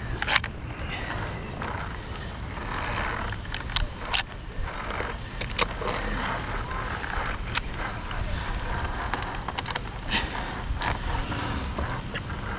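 A steady low rumble with irregular sharp clicks and knocks scattered through it.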